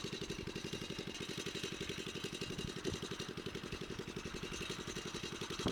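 A small engine idling steadily, with a fast, even low putter.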